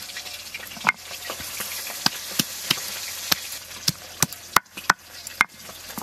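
A stone pestle knocking and crushing fresh ginger, garlic and green chillies on a flat grinding stone (shil-nora), about ten sharp knocks at uneven spacing, over a steady frying sizzle.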